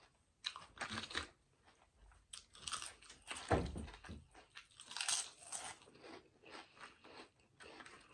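A person chewing and crunching crunchy snack food close to a microphone, with irregular crunches, the loudest about three and a half seconds in.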